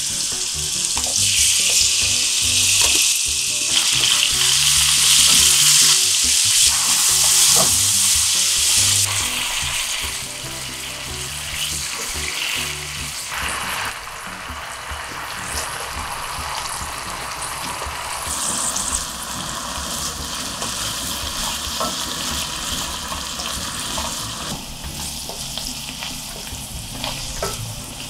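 Cubed pork sizzling in hot oil in a nonstick frying pan, loudest for the first nine seconds after the meat goes in, then going on more quietly while chopped onion is added and stirred in with a silicone spoon.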